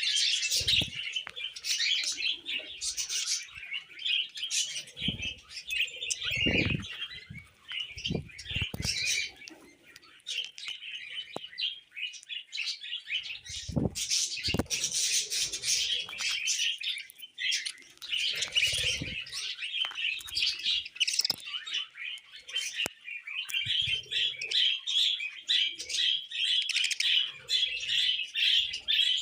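Budgerigars chattering and warbling continuously in quick, busy chirps, with a few low thumps scattered through, the loudest cluster about five to nine seconds in.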